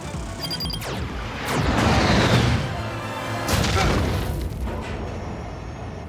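Action-cartoon soundtrack: music with falling whooshes and two loud booming crashes, the loudest about two seconds in and another about three and a half seconds in.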